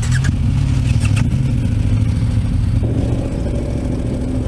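Big adventure-motorcycle engine running at low revs while the bike rolls slowly, with a higher note joining about three seconds in.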